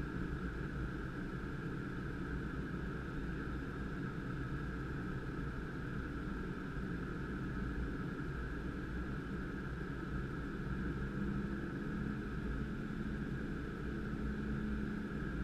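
Steady cockpit noise of a Gulfstream G550 business jet on approach: an even rush of airflow with the hum of its jet engines, unchanging throughout. A low hum in it grows a little stronger in the second half.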